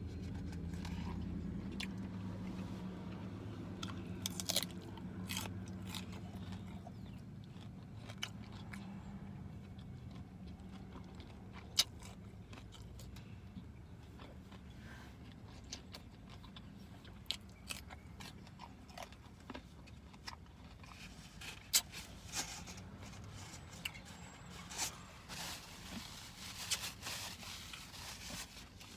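A person chewing and biting into fried chicken wings close to the microphone, with irregular wet mouth smacks and crunches that come more often in the second half, over a low steady hum that fades in the first several seconds.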